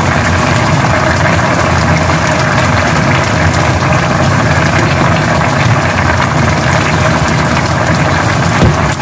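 Pot of thick braised spicy chicken stew (dakbokkeumtang) bubbling on the stove, a steady dense simmering crackle.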